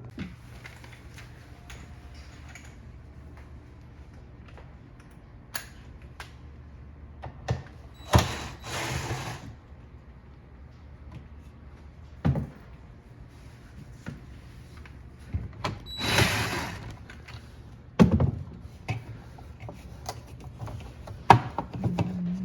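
Refrigerator being handled: scattered clicks and knocks, with two short rushing noises, over a low steady hum.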